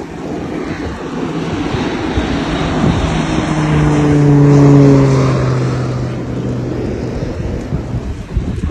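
A Fire Boss water-bombing plane, a single-engine turboprop, flying low overhead. Its propeller drone swells to a peak about halfway through, then drops in pitch and fades as it passes.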